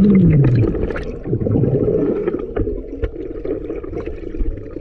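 Muffled underwater sound of a swimming pool, picked up by a submerged camera: a steady low water rumble with scattered clicks and gurgles. A low hum slides down in pitch at the very start.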